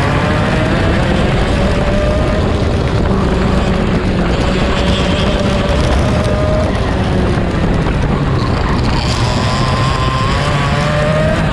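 Two-stroke racing kart engine at race pace, heard onboard. Its pitch climbs steadily, drops about seven seconds in, then climbs again near the end as the kart accelerates out of the corners.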